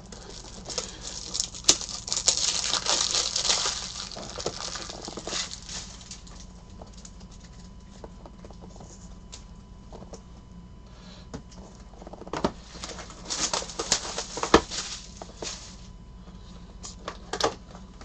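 Baseball trading cards and their cardboard packaging being handled on a tabletop: cards slid, shuffled and stacked. There are rustling bursts about two seconds in and again around twelve to fifteen seconds, with scattered sharp clicks.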